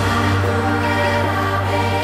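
Background music with sustained chords over a held low note.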